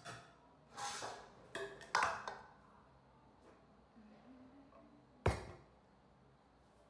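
Pots and lids being handled: a few light clinks and knocks in the first couple of seconds, then one sharper knock about five seconds in.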